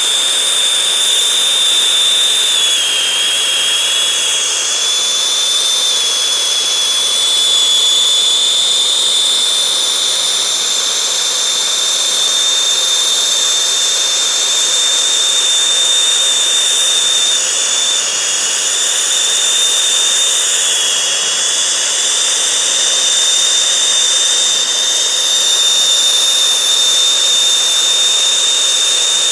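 Handheld gas torch burning with a steady loud hiss and a high, thin whistle that wavers slightly now and then, heating a steel part for hardening.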